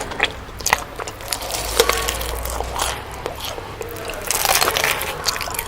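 Someone eating noisily: irregular crunching, biting and chewing of crispy fried chicken, with scattered sharp crackles.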